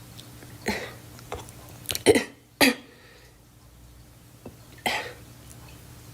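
A girl coughing: short single coughs spread over a few seconds, the loudest two close together about two seconds in, and a last one near the end.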